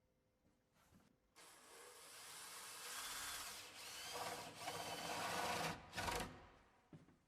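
Power drill boring the spindle hole through the face of a wooden door, starting about a second and a half in, building up, and stopping shortly before the end.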